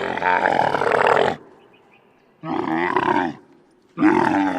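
Camel calling in loud, rough, guttural groans: one call trailing off about a second in, a shorter one in the middle, and a third starting near the end.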